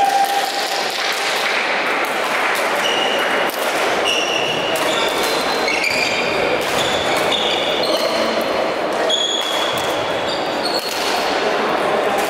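Badminton doubles rally: rackets striking the shuttlecock and many short, high squeaks of court shoes on the sports-hall floor, over the steady noise of a busy hall with background voices.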